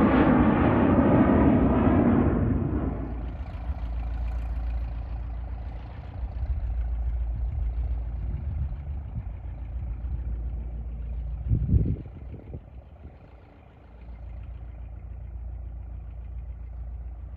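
Cessna Citation CJ4 business jet's twin turbofans roaring as it climbs out after takeoff, cut off about three seconds in. After that a much quieter low, steady rumble with a couple of short thumps near the middle.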